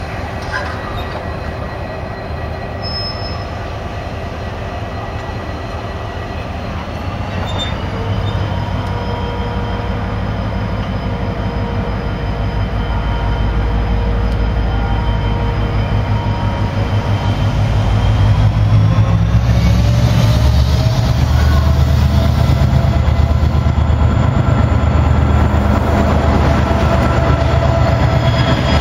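DFB-class diesel-electric locomotive pushing a rake of passenger carriages away from the platform. Its engine and motor note climbs twice as it throttles up, and the low rumble grows louder.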